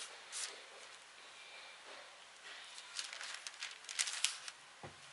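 Paper pages rustling and crackling near a microphone in short spells, as Bible pages are leafed through to find a passage.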